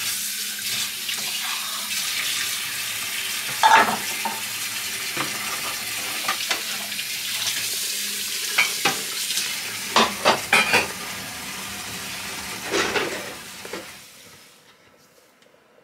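Washing up by hand at a sink: a steady hiss of running tap water, with plates, pans and cutlery clinking now and then, several clinks close together about ten seconds in. The sound fades out near the end.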